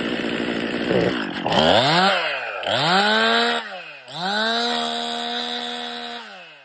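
Stihl MS 261 C-M two-stroke chainsaw with M-Tronic fuel control, revved up three times: two quick rises and drops in pitch, then a rise held at a steady high speed for about two seconds before the engine speed falls away near the end. It is a test run of a saw that runs short of fuel at the top end.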